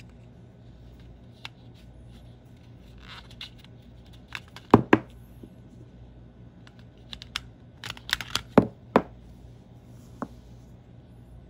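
Hands handling a wireless mouse and an AA battery taken from its battery compartment: scattered sharp plastic clicks and knocks with a brief scrape. The two loudest clicks come about five seconds in, then a cluster of clicks around eight to nine seconds.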